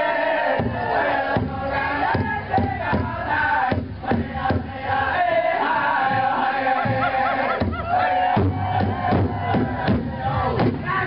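Powwow singing: many voices chanting over a beaten drum, with high whoops and cries from the crowd.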